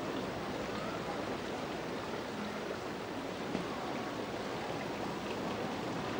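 Steady, even rushing noise throughout, with no distinct events.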